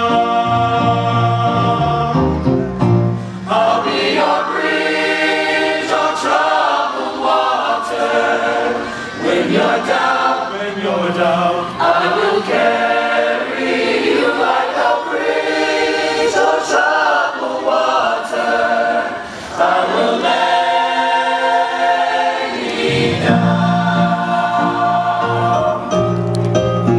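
High school choir singing, several voices together. A low instrumental accompaniment sounds under the voices at the start and comes back in near the end.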